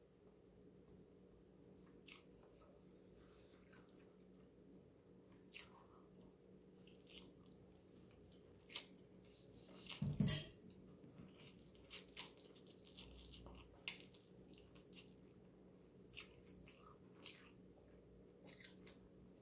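A person eating instant ramen noodles: soft chewing and short mouth smacks, with one louder slurp of noodles about halfway through.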